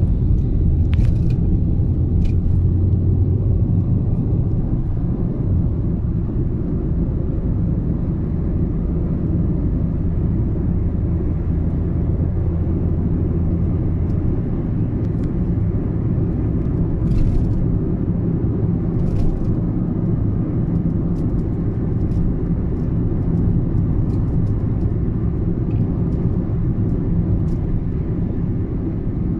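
Steady low road rumble from inside a moving car with its windows shut, with a low hum that fades about halfway through and a few faint clicks and rattles.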